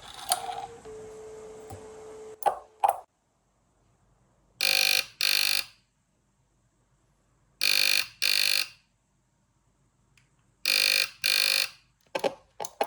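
A steady dial tone stops with two clicks about two and a half seconds in. The 1960s Austrian loudspeaking telephone's internal AC buzzer then rings for an incoming call: three double rings about three seconds apart, bright and buzzing. A couple of clicks come near the end.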